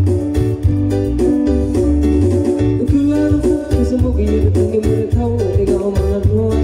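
Music with a heavy bass line, a steady beat and plucked guitar.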